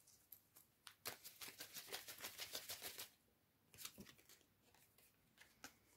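Faint handling of a deck of tarot cards: a quick run of small card flicks and snaps for about two seconds starting about a second in, then a couple of soft taps a second later.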